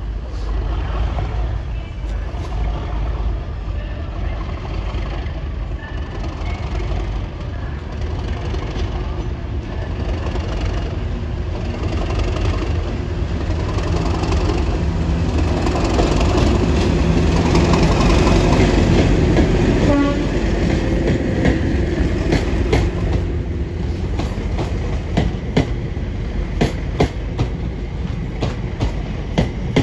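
Class 37 diesel locomotive's English Electric V12 engine running as it passes with a hauled Class 730 electric unit in tow. The deep rumble is loudest as the locomotive goes by, a little over halfway through. Near the end it gives way to the regular clickety-clack of the unit's wheels over rail joints.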